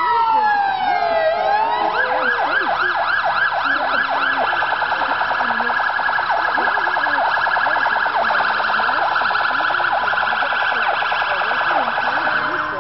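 Electronic siren on a police patrol boat: a wail sweeping down in pitch, then about two seconds in switching to a yelp of quick up-and-down sweeps that speeds up into a rapid warble, cutting off near the end.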